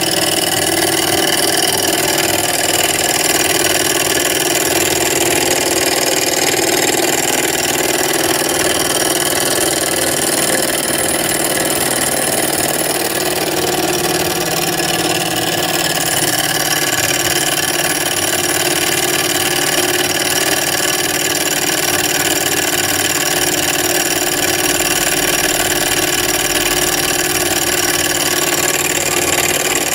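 Small Stirling engine running steadily at speed on an HHO (oxyhydrogen) flame and spinning a tiny DC motor used as a dynamo. It makes an even mechanical whir with a steady hiss over it.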